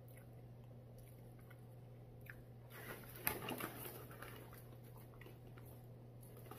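A person biting into and chewing a fried chicken sandwich, faint, with a short burst of crunching about three seconds in.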